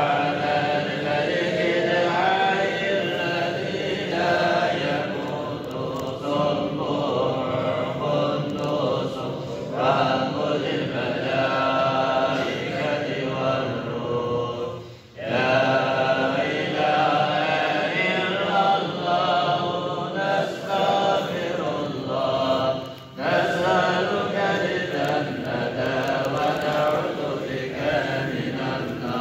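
A man chanting an Islamic recitation in long, drawn-out melodic phrases, with short pauses about halfway through and again near three quarters of the way.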